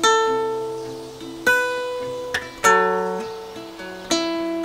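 Acoustic guitar music: slow plucked chords, a new one about every second and a half, each left to ring out and fade.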